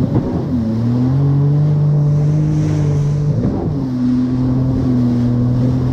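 Yamaha VX Deluxe jet ski engine running steadily at speed over ocean chop, with water rushing past. Its pitch drops briefly twice, near the start and a little past halfway, then settles back.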